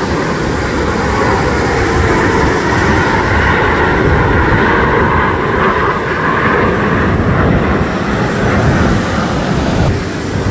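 A formation of Canadair CT-114 Tutor jets, each with a single turbojet, flying past. Their engine noise is loud and sustained with a slightly shifting pitch, easing off a little near the end.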